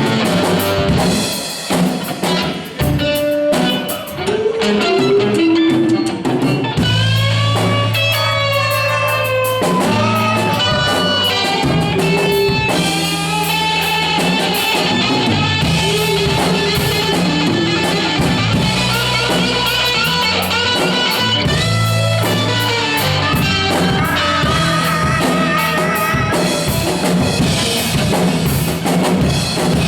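Rock band playing an instrumental passage: guitar over bass and drum kit, with guitar notes bending in pitch through the middle.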